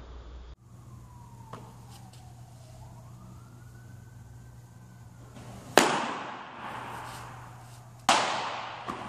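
Two loud, sharp smacks of a thrown baseball hitting a catcher's glove, about two seconds apart, each echoing for a second in the indoor pitching tunnel.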